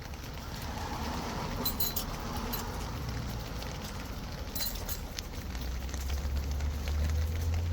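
Light metallic clinks of steel tools and hub parts being handled, in two short clusters, over a low rumble that grows louder in the second half.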